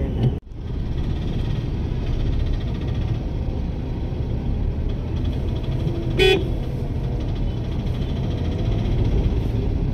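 Steady low rumble of city traffic heard while riding, dropping out for an instant near the start. About six seconds in, a vehicle horn gives one short honk.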